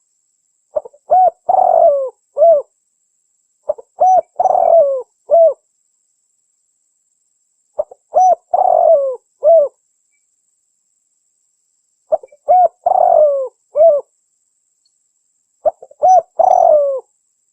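Spotted dove (tekukur) cooing: five phrases, a few seconds apart, each a short note followed by three coos, the middle coo drawn out longest and each coo dropping in pitch at its end.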